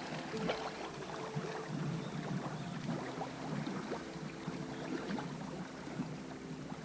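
River water rushing through a riffle and lapping and splashing against the hull of a drifting inflatable boat, with many small irregular splashes. Faint background music with held notes runs underneath.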